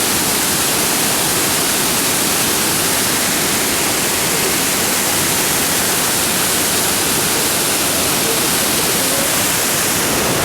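Loud, steady rush of river water pouring down a waterfall through a rocky gorge.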